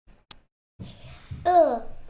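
A young child's voice making a drawn-out falling vocal sound, not clear words, after a single sharp click about a third of a second in.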